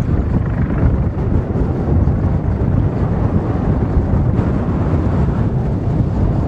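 Wind buffeting the camcorder's microphone: a heavy, irregular low rumble with a hiss above it.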